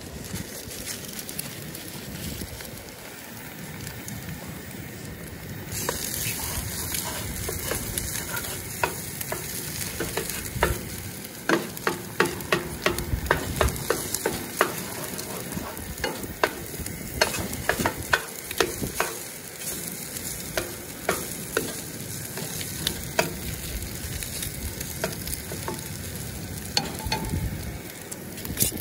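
Bacon and eggs sizzling in a frying pan. The sizzle comes in about six seconds in and runs steadily. A spatula clicks and scrapes against the pan in a quick run through the middle, with more scattered clicks later.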